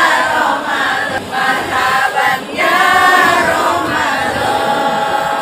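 A group of women singing together as a choir, with long held, wavering notes.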